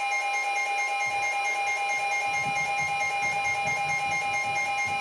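Emergency Alert System attention tone: a steady electronic alarm tone held without a break, signalling a new weather warning about to be read.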